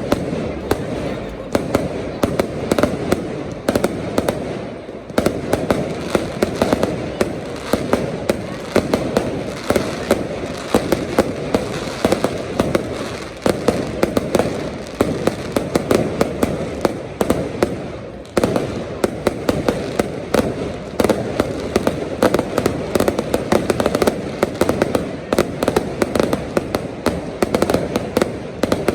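Fireworks display going off without a break: sharp bangs and crackles several times a second over a steady din.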